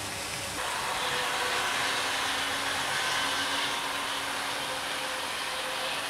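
OO gauge model trains running on a layout: small electric motors whirring and wheels running on the rails as a steady hum with faint steady tones, louder from about half a second in.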